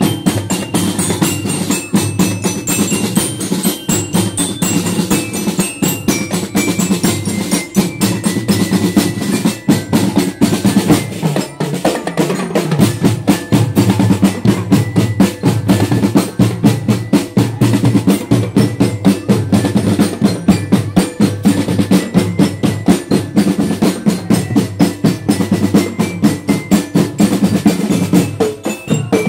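Marching band playing in the street: snare and tenor drums beat a steady, fast rhythm while marching glockenspiels ring out a melody. The drumming grows louder a little under halfway in.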